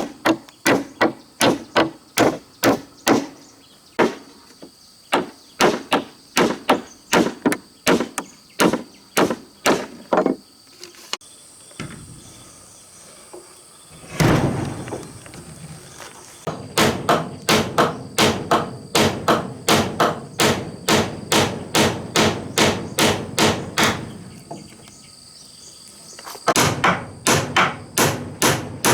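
Hammer striking wood in quick runs of blows, about two to three a second, with two short pauses and one heavier thump about halfway through. Insects chirp steadily in the background.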